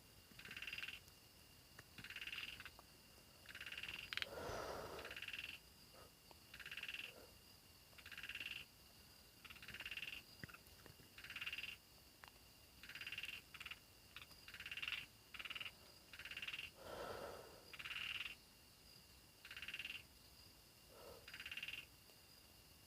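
Frogs calling: short, repeated calls about every one and a half seconds, with two lower, longer croaks, over a steady high insect trill.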